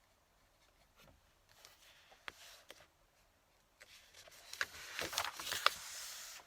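Fountain pen nib scratching across paper in two stretches of writing, a short one about a second and a half in and a longer, louder one from about four seconds, with small ticks as strokes start and stop.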